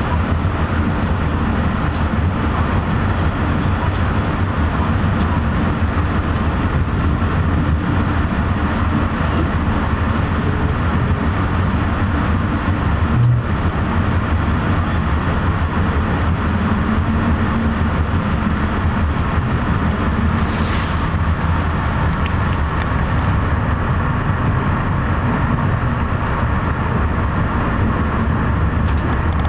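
Amtrak Hiawatha passenger coach in motion, heard from inside the car: a steady low rumble of the wheels on the rails and the car's running noise, with a single knock about halfway through.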